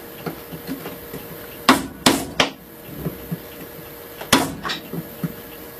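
A chisel being struck to chop out a hole through a hardwood plane body: three sharp knocks in quick succession a little under two seconds in, then two more near the end, with lighter taps between.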